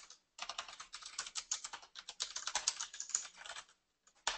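Fast typing on a computer keyboard: a quick run of keystrokes for about three seconds, a pause, then one last short burst of keys near the end.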